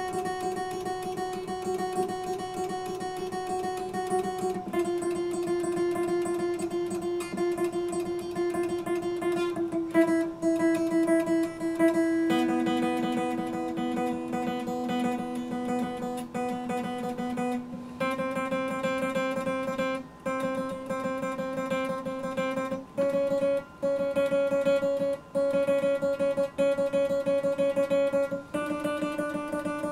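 Epiphone acoustic guitar played solo with fast, repeated picking over held chords, the chord changing every few seconds.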